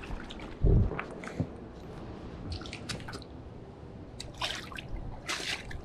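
Water dripping and splashing, with scattered small clicks and a dull thump less than a second in, then two short splashy bursts near the end.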